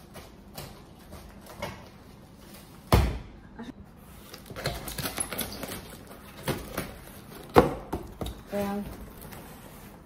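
Kitchen knife cutting the packing tape on a cardboard shipping box, with tape tearing, cardboard rustling and the flaps being pulled open. A sharp knock about three seconds in is the loudest sound, and a second one comes later.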